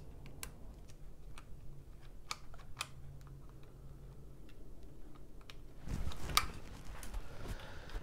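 Irregular light clicks and taps of a small hand tool working on a mountain bike's handlebar-mounted dropper-post remote lever and cable, with a louder burst of handling noise about six seconds in.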